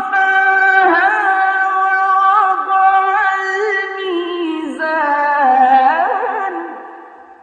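Unaccompanied melismatic Quran recitation by a single voice: long held, ornamented notes with small pitch turns, sliding down about three-quarters of the way through and fading away near the end.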